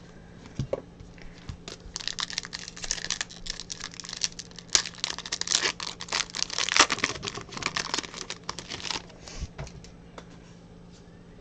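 Foil wrapper of a trading card pack crinkling and tearing as it is ripped open and handled. The dense crackle runs for about seven seconds, with lighter handling noise before and after it.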